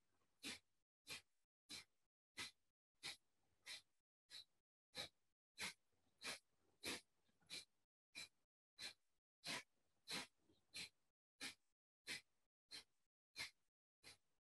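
Kapalabhati breathing: a steady run of short, sharp, forceful breaths out, about three every two seconds, each one driven by a quick inward snap of the belly.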